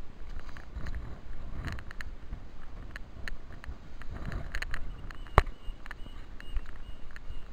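Wind buffeting the camera microphone in a low rumble, with scattered knocks and rustles from the camera as the walker moves; one sharp click about five seconds in.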